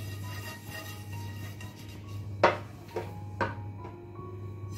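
Oil being brushed around a non-stick pan with a silicone brush, then three sharp knocks of kitchenware in a little over a second, the first the loudest.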